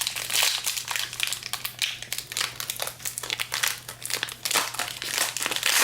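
Wrapper of a baseball card pack crinkling and rustling as it is opened by hand, a dense, irregular crackle throughout.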